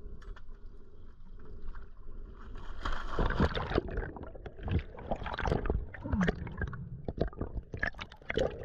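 A diver slipping off a boat into the sea with a camera: a low steady hum at first, then from about three seconds in, splashing and a rush of bubbles crackling and gurgling around the camera underwater.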